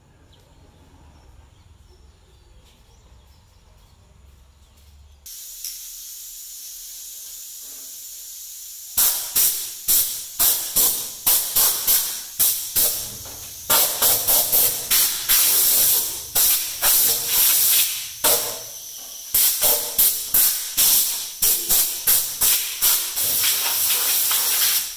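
Compressed air from a blow gun converted from an oil spray gun, blowing metal chips off a lathe bed. A quiet steady hiss starts about five seconds in; about four seconds later loud short blasts of air begin, several a second, with a few longer blasts among them.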